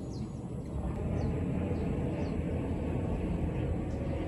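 Outdoor ambience: a steady low rumble with several short, high bird chirps scattered through it.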